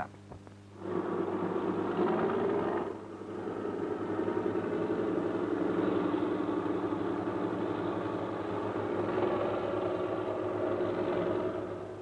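Crawler tractor engine running steadily. It drops briefly about three seconds in, then picks up again and carries on, heard through a narrow old film soundtrack.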